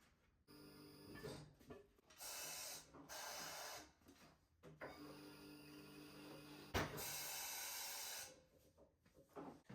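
Three short bursts of hissing, each about a second long, over a faint steady hum.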